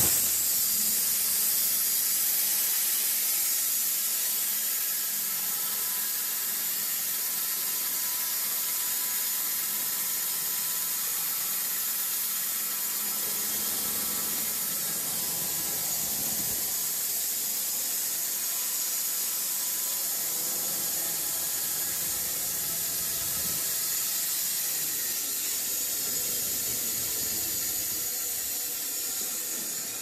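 Horizontal band sawmill cutting lengthwise through a squared timber: a steady high hiss from the blade and spraying sawdust over a faint steady hum, fading near the end as the cut finishes.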